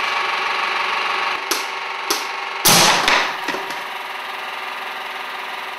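A small 12-volt air compressor runs steadily; two sharp clicks come about a second and a half in, then a loud bang a little later as the fuel-air charge in the homemade explosion engine's cylinder goes off hard enough to blow the cylinder off its frame, with a brief clatter after.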